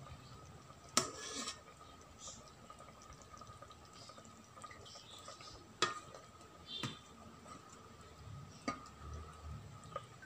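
A ladle clinking against a rice-cooker pot and a serving bowl as curry is scooped out: about five sharp clinks spread a few seconds apart, the loudest about a second in. A faint steady high tone sits underneath.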